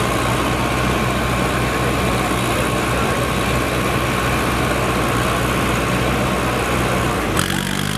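Diesel tractor engines running steadily during a tug-of-war pull, with a steady high tone over them. The sound changes abruptly near the end.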